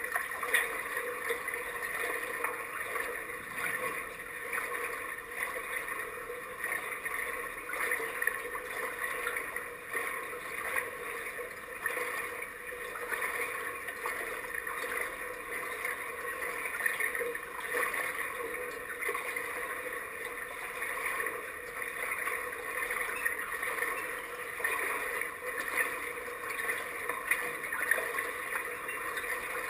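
Pool water lapping and gurgling against a camera sitting at the waterline, a steady fluctuating wash with many small ticks and splashes throughout.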